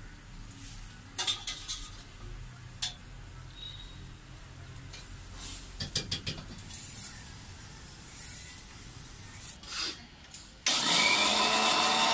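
A metal spatula scraping and clinking in a wok of food frying in oil, in scattered clusters of strokes. Near the end an electric mixer grinder starts and runs loudly and steadily.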